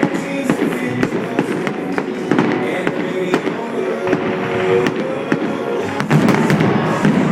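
Fireworks display: a rapid, continuous run of sharp bangs and crackles from bursting shells, heard over loud music playing along with the show.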